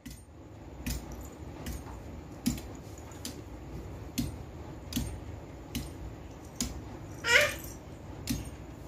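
A toddler's short, high vocal sound, one brief rising-and-falling call about seven seconds in, over faint sharp clicks that repeat evenly a little faster than once a second.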